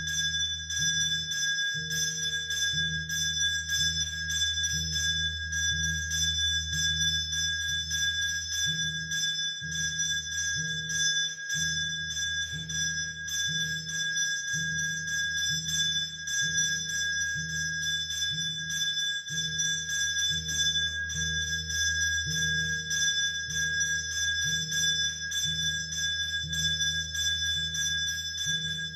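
Temple bell rung without pause for the arati, a steady high ringing over a low beat that repeats a little more than once a second.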